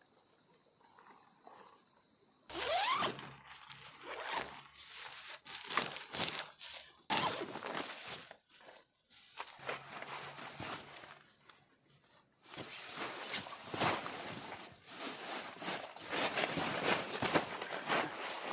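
A steady, high insect trill for the first couple of seconds. It cuts off suddenly and gives way to irregular rustling and scuffing, with short pauses between bursts.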